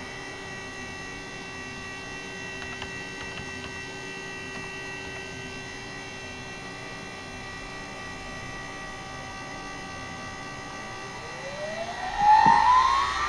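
Huanyang water-cooled CNC spindle running on its VFD, giving a steady electrical hum with several fixed whining tones. About eleven seconds in, a whine starts rising in pitch and the sound gets louder as the spindle spins up toward 10,000 RPM.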